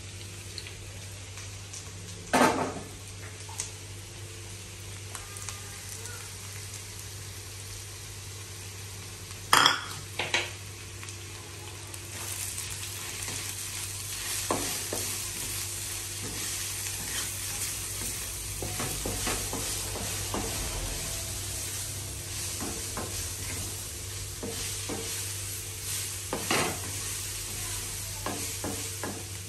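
Julienned beetroot and carrot sizzling in a hot wok while a wooden spatula stirs and scrapes them around the pan. A few sharp knocks come about two seconds in, twice around ten seconds, and once near the end, and the sizzle gets louder from about twelve seconds in.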